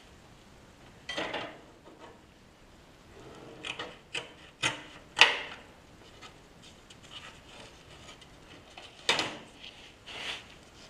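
A bar and hand tools being picked up, set down and slid across a cardboard template on a workbench: a handful of short scrapes and knocks, the loudest about five seconds in.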